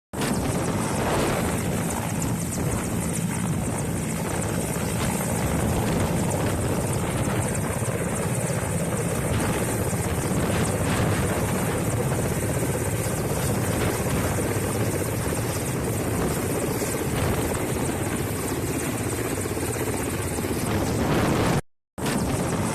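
Firefighting helicopter flying, its rotor and engine running steadily and loud. The sound breaks off abruptly near the end.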